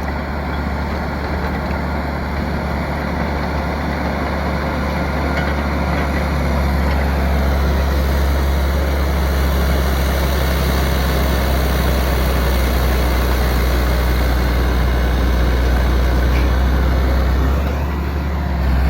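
Caterpillar D8K bulldozer's diesel engine running steadily with a deep drone, growing louder about seven seconds in and easing back near the end.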